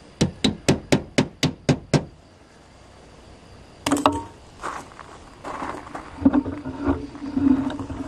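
Rubber mallet giving about eight light, quick taps to the plastic locking clips of a Dometic fridge vent cover, seating the clips. A few seconds later come scattered knocks over a low steady drone.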